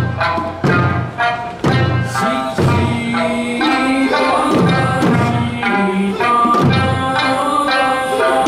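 Eisa drumming and music: an Okinawan folk melody with a singing voice, and taiko drums struck together on the beat about once a second.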